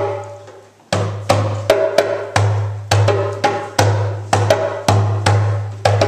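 A group of djembe hand drums played together in a rhythmic pattern of about two to three strokes a second, each stroke deep with a sharp attack. The strokes resume about a second in after a short lull.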